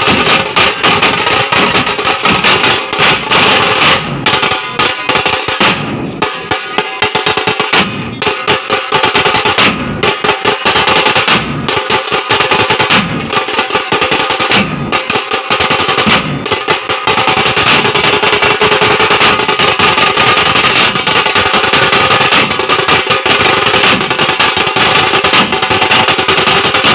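A group of drummers beating large metal-shelled drums and round frame drums with sticks, playing together in a fast, dense rhythm. There are brief breaks in the first half; from a little past the middle the beating runs on without a break.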